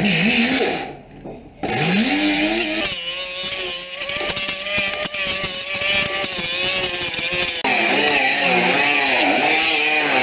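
Angle grinder grinding rust off a steel truck-cab roof, its motor pitch sagging and recovering as the disc bites. It cuts out briefly about a second in, spins back up, runs steady for several seconds, then wavers under load again near the end.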